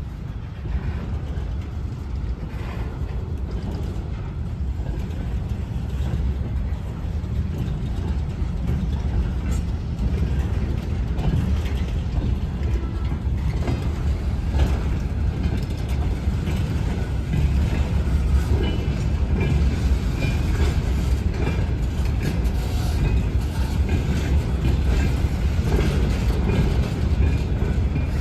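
ChME3 diesel shunting locomotive moving, its six-cylinder diesel engine running steadily while wheels click over the rail joints. It grows gradually louder as it comes closer.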